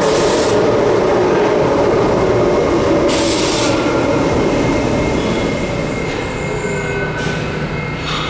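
R68A subway train braking to a stop at a station platform, its running note slowly falling as it slows, with thin wheel squeals and two short bursts of hiss, one at the start and one about three seconds in. It grows quieter toward the end, leaving a steady low hum as the train stands.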